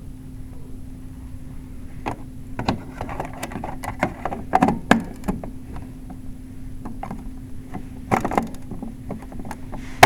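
A run of irregular knocks and clatter, as of things being handled, about two to five seconds in and again near eight seconds, over a steady low hum, ending with a sharp click.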